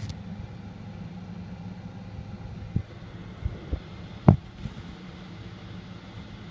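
Steady low background hum, with a few short knocks and taps about three to four and a half seconds in; the sharpest comes just after four seconds.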